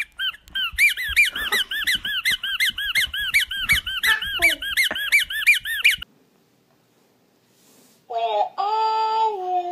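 Sophie la girafe rubber squeaky toy squeezed over and over, about four high squeaks a second, with a baby's laughter in between. The squeaking stops suddenly. Near the end a voice-like sound holds a steady note.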